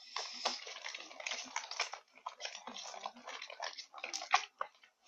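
Slime being mixed in a pot: a dense run of wet squishing and popping, with one sharper pop near the end before it stops.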